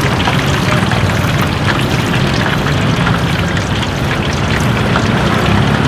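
Steady din of a busy roadside food stall: engines running in the street traffic, with scattered light clicks and clatter.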